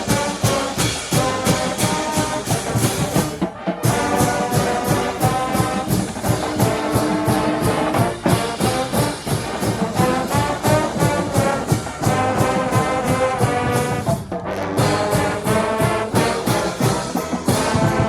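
College marching band playing: trombones and trumpets over a steady drum beat, with two short breaks, about four seconds in and about fourteen seconds in.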